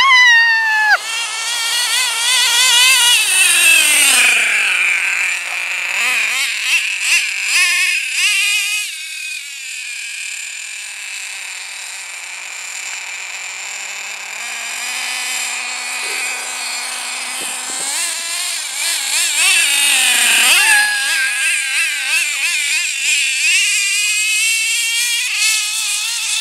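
HPI F4.6 two-stroke nitro engine of an RC monster truck running at high, wavering revs as it is driven, with the pitch rising and falling under the throttle. The revs fall away to a low steady note around the middle, then climb back to full about two-thirds of the way in.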